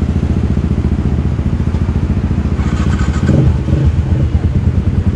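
Yamaha Exciter 150 single-cylinder four-stroke engine idling steadily while the motorcycle stands still, with a rapid, even beat of firing pulses.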